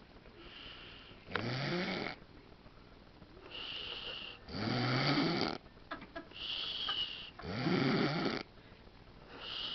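A man snoring heavily in his sleep, about once every three seconds. Each breath starts as a thin whistle and then becomes a loud, rattling snore that rises in pitch.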